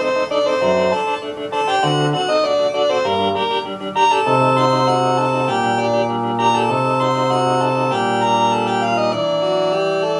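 Rockjam RJ561 electronic keyboard playing a built-in demo song through its own speakers. Shorter notes come first, then from about four seconds in there are long held chords over a bass line that moves every second or so.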